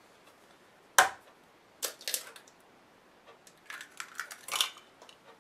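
An egg rapped once sharply on the rim of a ceramic mixing bowl about a second in, then the shell crackling in short bursts as it is pulled apart and the egg opened into the bowl.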